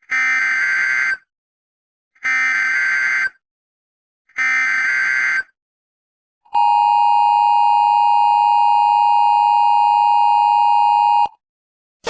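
Emergency Alert System signal. First come three buzzy digital data bursts of about a second each, the SAME header. Then a steady two-tone attention signal sounds for about five seconds and cuts off abruptly.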